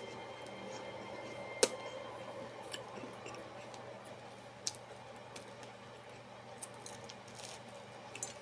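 Scattered light clicks and taps of someone eating, with chewing. The sharpest click comes about a second and a half in. A steady low hum lies underneath.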